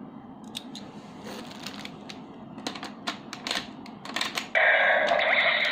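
Plastic clicks and snaps from a DX Gaburevolver toy gun as it is handled and a Zyudenchi battery is loaded. Near the end the toy's speaker starts a loud electronic sound effect.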